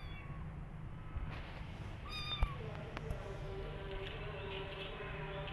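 Kitten mewing: short high-pitched cries, repeated a few times.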